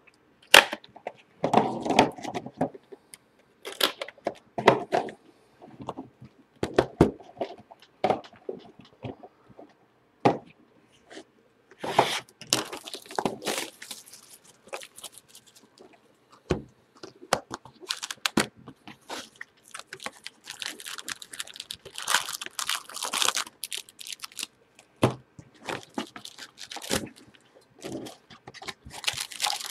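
Hands opening and handling sealed trading-card boxes: plastic wrap crinkling and tearing in a few longer stretches, among many sharp taps and knocks of cardboard boxes and packs set down on a table.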